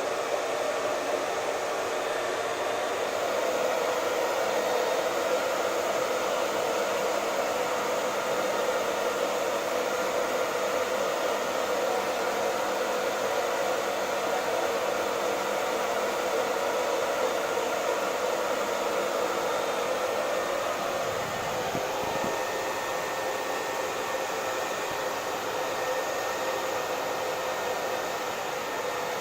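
Hair dryer running steadily: a continuous rush of blown air with a faint motor hum.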